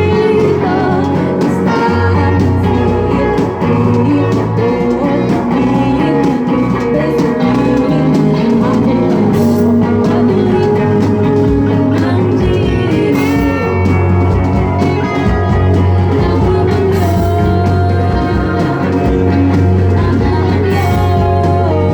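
Live band playing a rock song, with guitar over a steady bass line.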